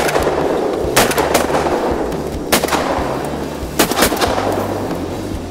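Shotguns firing during a duck hunt: about six shots in quick pairs, each trailing off in an echo.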